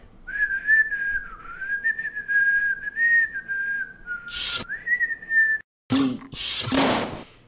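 A person whistling a simple tune on one thin, slightly wavering note line for about five seconds. The whistle then stops and a few short noisy bursts follow near the end.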